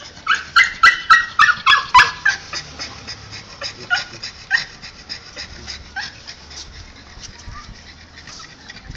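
A dog yipping: a quick run of about eight high yips in the first two seconds, then a few fainter short whimpers.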